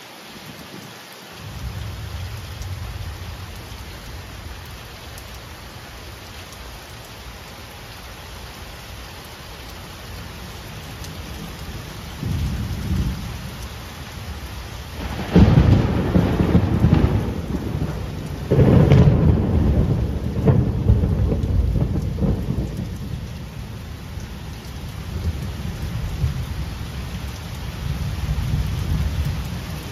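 Thunder: a low rumble swells about twelve seconds in, then a sharp crack and loud peal about fifteen seconds in and a second loud peal a few seconds later, rolling away over several seconds. A steady background rush runs underneath.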